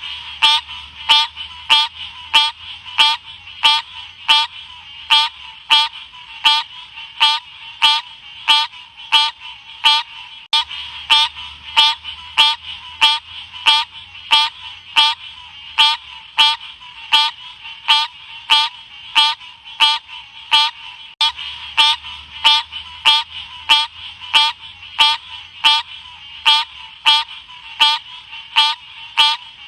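Odorrana livida frog calling: short, sharp chirp-like calls repeated evenly about twice a second.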